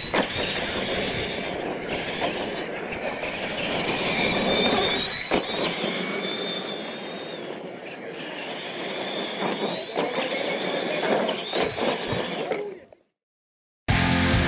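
Radio-controlled monster trucks racing over dirt, their electric motors and gearboxes whining high and rising and falling with the throttle, with a few knocks from landings. The sound cuts off abruptly about 13 seconds in, and loud electric-guitar rock music starts just before the end.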